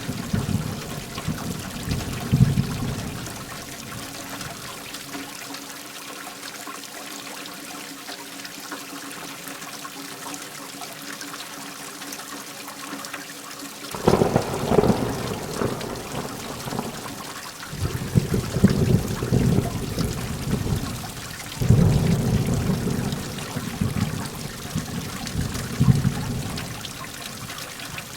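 Heavy rain falling in a steady hiss, with rolling thunder. A rumble fades away over the first few seconds, then the rain goes on alone until thunder starts again about halfway through. It rolls on in several deep swells to the end.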